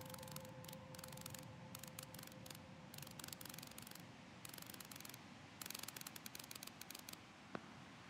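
Faint sound-designed wing flutter of a firefly: about six short bursts of rapid dry clicking, each lasting under a second, with one sharp click near the end. A held musical tone fades out at the start.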